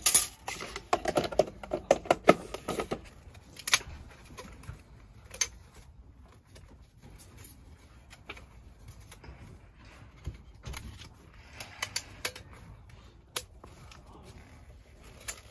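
Scattered sharp clicks and light knocks of small hard objects being handled, thickest in the first three seconds, then sparser.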